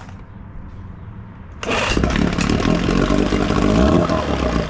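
Evinrude 6-horsepower twin-cylinder two-stroke outboard firing up about a second and a half in, then running with its revs rising and falling.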